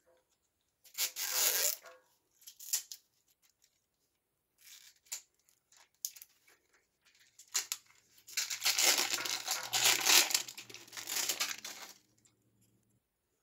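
Plastic shrink-wrap being picked at and torn off an L.O.L. Surprise toy ball. A few short crackling tears come first, then a longer, louder run of ripping and crinkling for about three seconds near the end.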